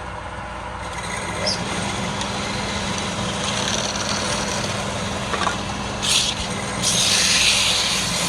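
Wood lathe motor running steadily while a turning tool cuts the spinning wood, giving a hissing scrape. The scrape comes briefly about six seconds in, then louder for about a second near the end.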